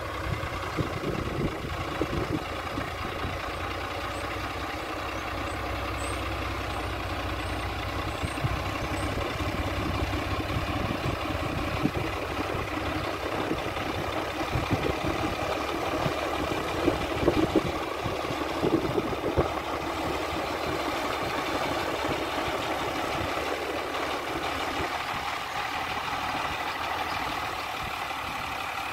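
Diesel tractor engine running steadily under load as the tractor drives over a pile of chopped silage to pack it down, with a few short knocks about halfway through.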